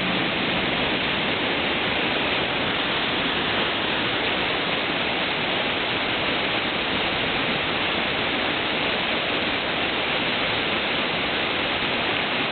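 Whitewater rapid rushing steadily: a constant, unbroken hiss of churning water.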